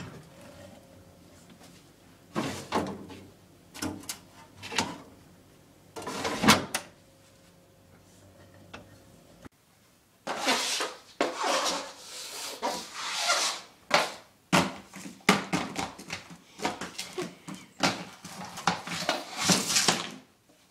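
Household handling noises: a refrigerator door opening, then separate knocks and clunks over a steady low hum. About halfway through, after a break, comes a dense run of irregular rustling and scraping bursts.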